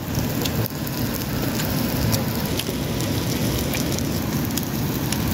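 Chicken sizzling on a hot flat stone over a wood fire: a steady hiss with scattered small pops.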